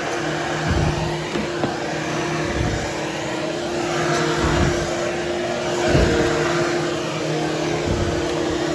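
Hoover HushTone vacuum cleaner running steadily with a hum, grooming berber carpet, with low thumps about every two seconds as it is worked back and forth over the pile.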